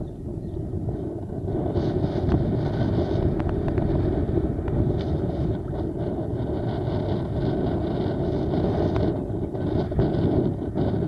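Wind rumbling on the microphone over sea water sloshing and splashing close by. The splashing is busiest from about two seconds in to about nine seconds in.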